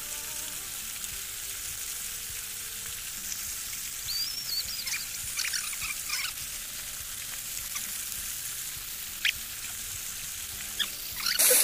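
Shallow creek water running with a steady hiss, with a few scrapes and splashes as a long-handled sand scoop works the mud at the bank. A much louder rushing noise cuts in near the end.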